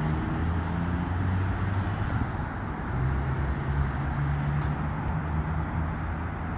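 Steady low outdoor rumble, with a faint click about halfway through.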